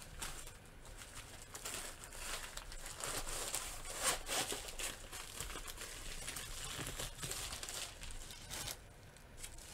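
Packaging crinkling and rustling in a run of irregular crackles as a diamond painting kit is unwrapped and handled.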